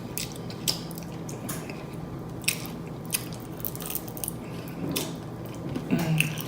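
Close-miked open-mouthed chewing with loud wet smacks and irregular crunchy clicks, as a person eats fried food.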